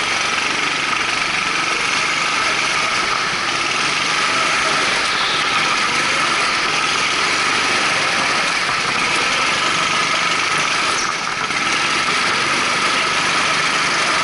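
Twin Honda GX200 single-cylinder four-stroke engines of a rental go-kart running steadily at speed, with a brief dip in loudness about eleven seconds in.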